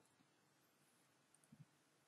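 Near silence: faint room tone, with one very soft brief sound about one and a half seconds in.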